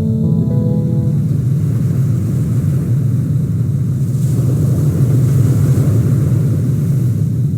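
Steady low rumble of a car being driven, road and engine noise, swelling slightly midway. Background music with held notes fades out about a second in.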